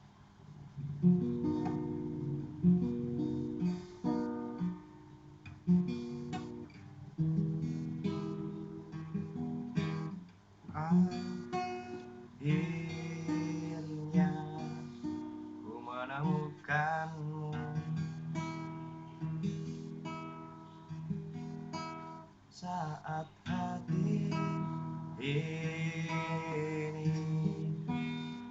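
Music: the instrumental intro of a song, with plucked and strummed string notes.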